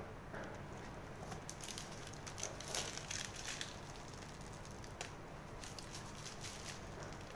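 Plastic piping bag crinkling and crackling as it is squeezed to pipe cream, in two spells of quick small crackles: one from about a second in and one around five seconds in.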